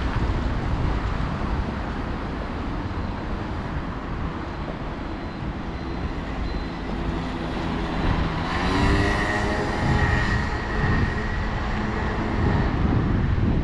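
Low rumble of city street traffic with wind on the microphone. About eight seconds in, a vehicle gives a whine that rises in pitch as it pulls away, lasting a few seconds.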